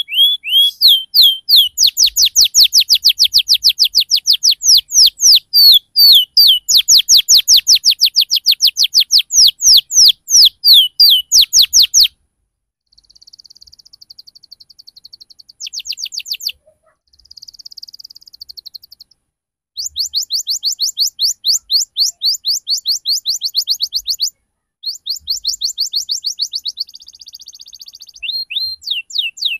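Domestic canary singing a lure song: a long roll of rapid repeated chirps, about five a second, breaks off about twelve seconds in. Shorter trills and buzzy phrases follow, with short pauses between them.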